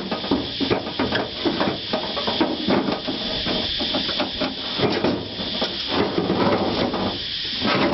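Electric window regulator being worked out of a Chevrolet truck door through the access hole: irregular metal clanks, knocks and scrapes against the door's sheet metal, over a steady hiss.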